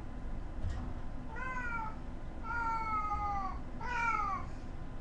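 A cat meowing three times, drawn-out calls that fall slightly in pitch, the middle one the longest at about a second.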